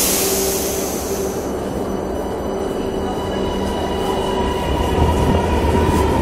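Meneghino metro train pulling out of an underground station: a hiss of air fades in the first second, then a whine and a low wheel rumble build and grow louder toward the end.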